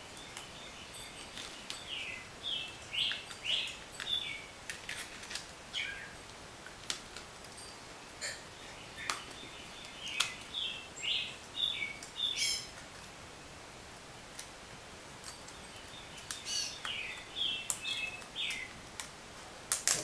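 A bird chirping in three short runs of high, sliding notes: a few seconds in, around the middle, and near the end. Light clicks and ticks from thin plastic sheets and a metal frame being handled come in between.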